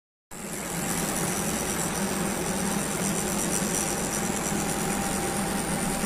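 Tattoo machine running with a steady buzz as the needle tattoos the skin of a forearm; it starts suddenly a moment in.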